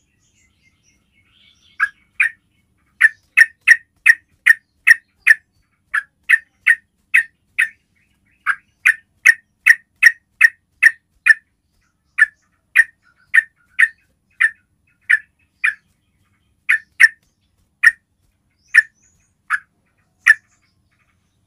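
Yellow-vented bulbul (trucukan) calling: a long series of short, sharp call notes, about two to three a second, in runs broken by brief pauses.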